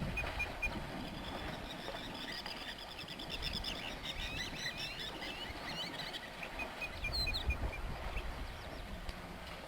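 Many birds chirping and trilling, with a low rumbling noise at the start and again about seven seconds in.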